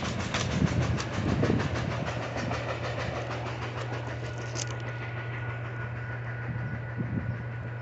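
Freight train cars rolling away, their wheels clicking rhythmically over the rail joints and fading out a little past halfway through. A steady low hum continues underneath.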